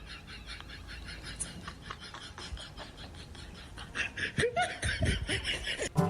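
A person laughing in quick, breathy pulses, getting louder about four seconds in.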